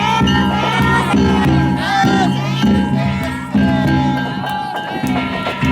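Danjiri festival music: a big drum beating a steady rhythm with metal gongs ringing over it, and voices calling along.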